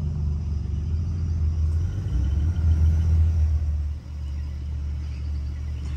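Off-road vehicle engine running low and steady, building a little from about two seconds in, then dropping off sharply about four seconds in and settling at a lower level.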